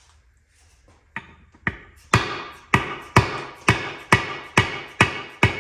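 Hammer striking a brass punch against a shaft in a Muncie four-speed transmission case, about ten sharp ringing metal blows at roughly two a second. The shaft is stuck and does not come out.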